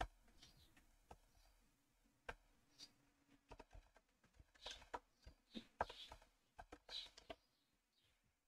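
Faint computer keyboard typing: scattered single key clicks, coming more often in the second half.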